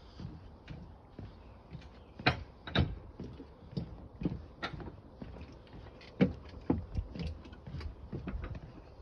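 Footsteps of a person walking: a run of irregular knocks and clicks, roughly two a second, a few of them much louder than the rest.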